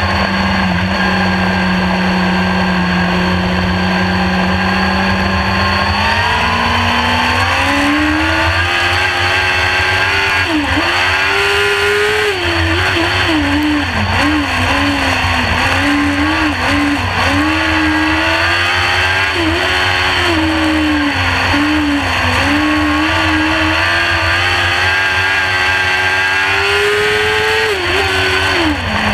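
In-car sound of a winged sprint car's engine on a dirt oval. It holds a steady low drone for about six seconds, then climbs in pitch as it accelerates. After that it rises and falls again and again as the throttle is opened and lifted through the turns.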